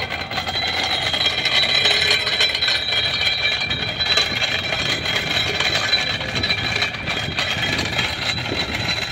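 Antique hand-cranked cider-press apple grinder turning steadily, its gears and cutting drum rattling and crunching as pear apples are fed into the hopper. A steady mechanical drone runs behind it.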